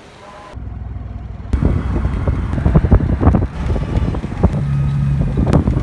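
Tea-processing machinery running with a low rumble and irregular clattering knocks, louder from about a second and a half in, with a steady hum joining near the end.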